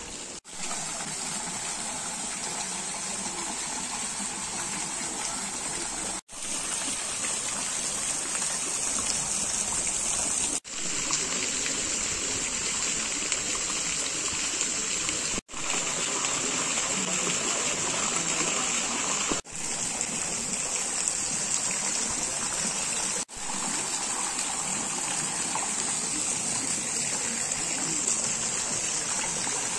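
Fountain water splashing and running steadily, a continuous rushing hiss broken by six brief dropouts.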